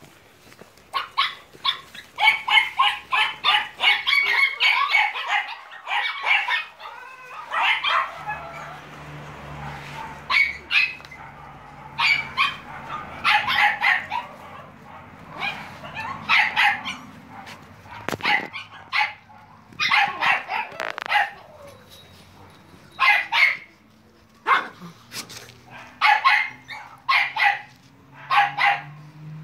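Staffordshire terrier puppies yapping and barking at play, in quick clusters of short high-pitched yips every second or two. A faint low hum runs beneath from about a third of the way in.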